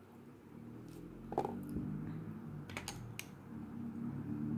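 A few light clicks of wooden drawing pencils being picked up and knocked together, three in all with the last two close together, over a faint steady low hum.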